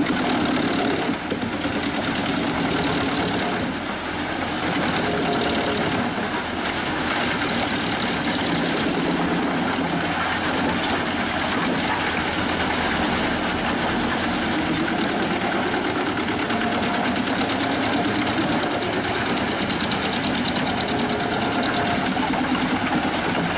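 Pezzolato PTH 1000/1000 G drum wood chipper running, driven through the power take-off of a 360 hp New Holland tractor. The engine and the chipper make a dense, steady noise with a few brief dips in loudness early on.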